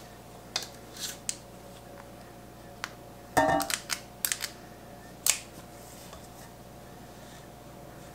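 Metal squeeze-handle cookie scoop scraping and clicking against a stainless steel mixing bowl and snapping as it releases dough balls onto a marble board: scattered clicks and scrapes, with a brief metallic ring in the busiest stretch a little over three seconds in.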